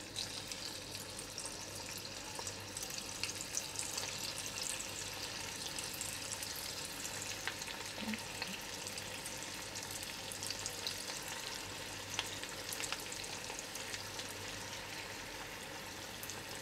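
Batter pakoras deep-frying in medium-hot oil in a kadai: a steady sizzle with scattered small crackles.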